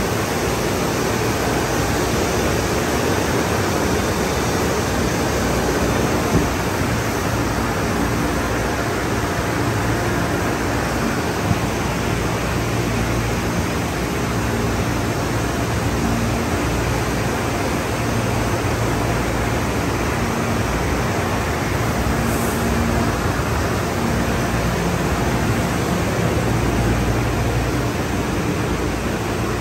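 Conveyor car wash tunnel running: water spraying and MCWW Crossover cloth wrap brushes spinning against a car, over a steady low machinery hum. Two brief taps sound in the first half.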